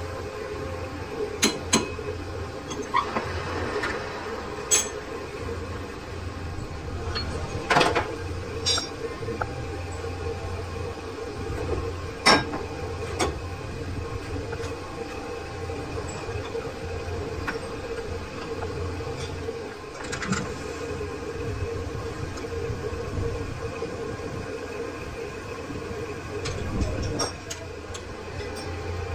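Metal-turning lathe running with a steady hum and low rumble, with sharp metallic clinks now and then, the loudest about eight and twelve seconds in.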